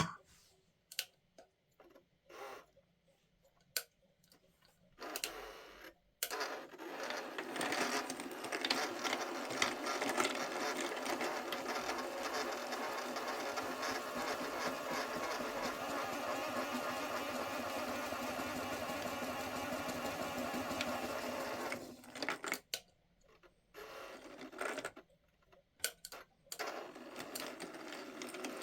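Small washing machine's motor whirring steadily as the drum turns, with cardboard hexagons rattling inside. A few scattered clicks come first, then it runs for over a quarter of a minute, stops with a few short starts, and starts up again near the end.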